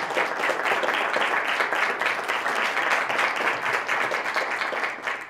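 Audience applauding, a dense sustained clapping that fades out near the end.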